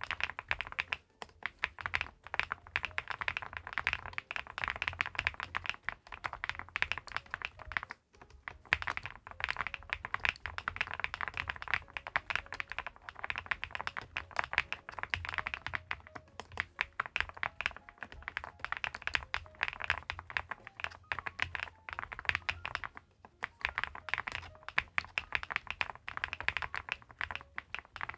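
Continuous typing on a Weikav Record Alice V2 mechanical keyboard (aluminium case, leaf-spring gasket mount): a dense run of key clacks, broken by short pauses about one, eight and twenty-three seconds in.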